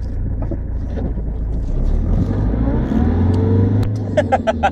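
Range Rover Classic's 200Tdi four-cylinder turbo-diesel engine running under way, heard from inside the cab, its revs rising about two seconds in and easing off again shortly before the end.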